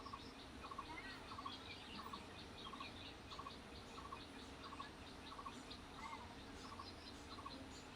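Faint, regular chirping, about two chirps a second, over a low steady hum.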